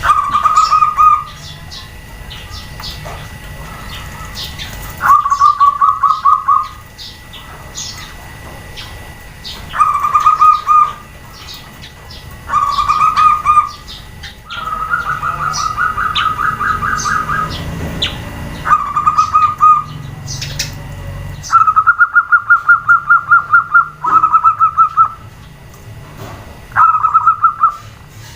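Zebra doves (perkutut) cooing back and forth: about nine bouts of rapid, staccato trilled coos, each a second or two long, with short high chirps in the gaps.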